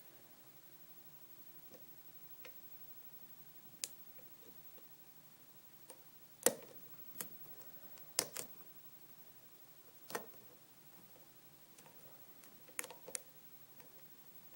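Scattered, irregular sharp clicks of a lock pick and tension tool working the pins of a five-pin pin-tumbler lock, the loudest about six and a half and eight seconds in.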